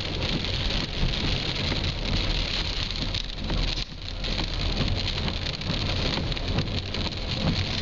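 Car driving on a rain-soaked road, heard from inside the cabin: a steady hiss of rain and wet tyres over a low engine rumble. The noise dips briefly about four seconds in.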